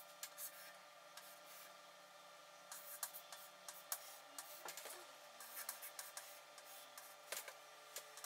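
Chalk drawing on a chalkboard: faint, irregular short scratches and taps of the stick against the board.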